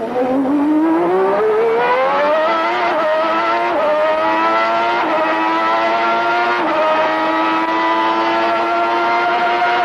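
Formula 1 car engine heard onboard at full throttle: it revs up steeply, then runs at high revs, rising slowly, with a few brief dips as at gear changes.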